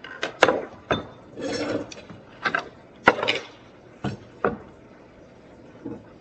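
Dishes and utensils knocking and scraping on a countertop as a meal is plated: a string of separate sharp clinks and knocks with short scraping sounds between them.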